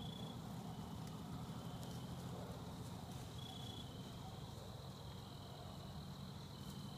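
Crickets trilling steadily, a thin high continuous note, over a low steady rumble.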